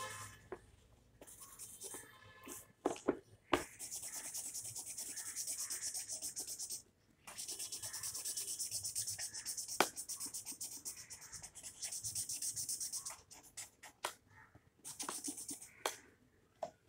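Felt-tip sketch pen scribbling fast on paper, colouring in with quick back-and-forth strokes at about five a second, in two long stretches with a short pause between. A few sharp clicks and knocks of the pen on the table come near the start and near the end.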